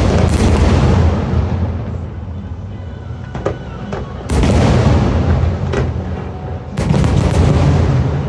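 Fireworks shells bursting: a loud boom at the start, another about four seconds in and a double boom near seven seconds, each trailing off in a rumble, with sharp single cracks between them. Music plays underneath.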